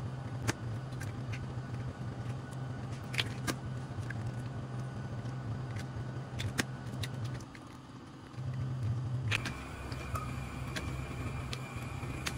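Eggs being cracked and separated over a stainless steel bowl: a few sharp taps and clicks of shell against the bowl, over a steady low mechanical hum.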